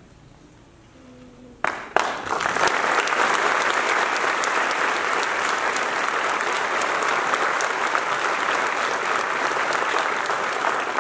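Audience applauding in an auditorium: after a quiet couple of seconds, a few sharp claps start it, then many hands clap steadily.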